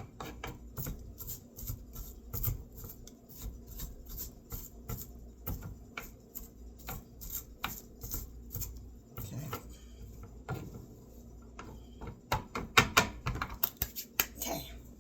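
Kitchen knife chopping onion on a cutting board: a run of quick taps, about two or three a second, with a louder flurry of taps near the end.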